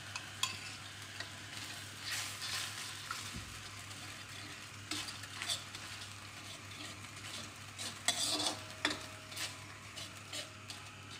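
Chilli sauce sizzling in a metal wok while a metal ladle stirs it, scraping and clinking against the pan now and then, as added cornflour slurry thickens the sauce.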